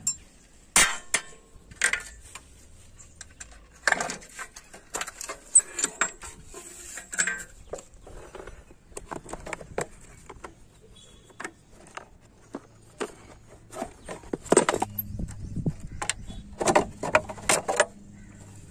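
Scattered metallic clinks, taps and knocks of hand tools and loose parts handled during motorcycle dismantling work, irregular and bunched in several clusters.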